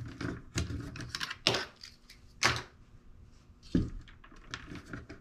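Banana-plug patch leads being pushed into and handled at the jacks of a push-button control station: a run of irregular clicks and knocks, the sharpest about one and a half and two and a half seconds in.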